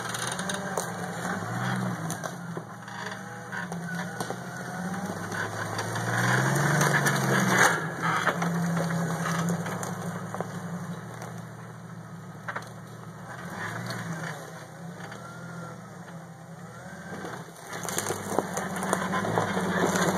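Jeep Wrangler engine running at low revs as it crawls over a rocky dirt trail, revving up about six seconds in, with the crunch and snap of tyres rolling over rocks, sticks and dry brush.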